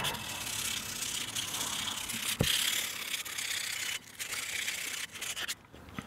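Sandpaper rubbing by hand around the outer ring of a metal air-horn diaphragm plate, a steady scratchy rasp that pauses briefly and stops near the end. A single brief knock sounds about halfway through.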